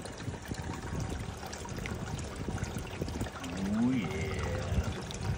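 Water pouring and trickling through a small sluice box as gold concentrates are run over its riffles, a steady flow.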